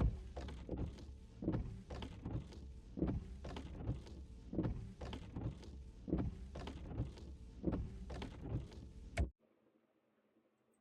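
A rhythmic run of soft rubbing strokes, about two a second, during a skincare routine. The strokes cut off abruptly about nine seconds in.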